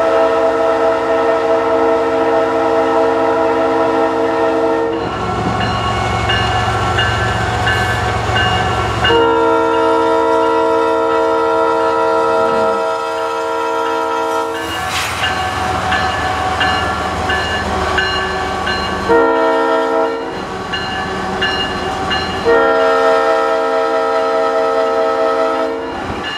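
Leslie S5T five-chime air horn on a CSX freight locomotive sounding the grade-crossing pattern of long, long, short, long. The low rumble and clatter of the passing train fill the gaps between blasts.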